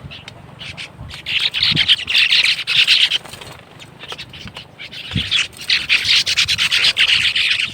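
Sparrows chirping together in a dense, rapid chatter, in two long bouts, the second starting about halfway through.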